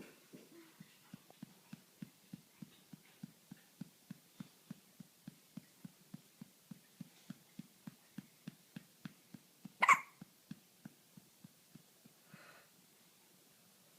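Rapid, regular hiccups, about three a second, that stop about eleven and a half seconds in. A single loud, sharp sound breaks in about ten seconds in.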